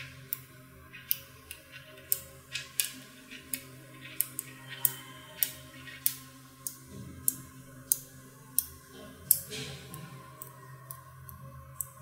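Small neodymium magnet balls clicking sharply as they snap onto one another one at a time, about one or two clicks a second at an uneven pace, with one louder snap about nine seconds in.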